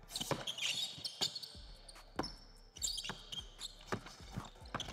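A basketball dribbled hard on a hardwood court in an irregular rhythm during a drive to the basket, with short high sneaker squeaks on the floor between the bounces.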